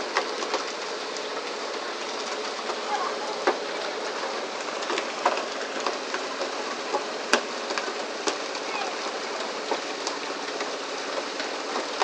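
Steady hiss of water spray and splashing along a tuna pole-and-line boat's hull, with scattered sharp knocks and slaps of tuna landing on the deck, the strongest about seven seconds in.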